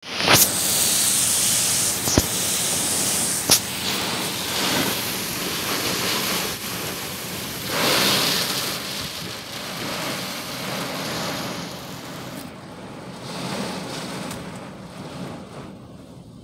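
Hurricane wind and heavy rain lashing the car, a steady loud rush that swells about eight seconds in and eases off toward the end. Two sharp knocks come about two and three and a half seconds in.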